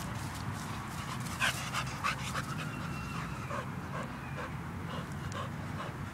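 Pit bull terrier panting in short, even breaths, about three a second, through the second half; a few rustles and knocks come before it.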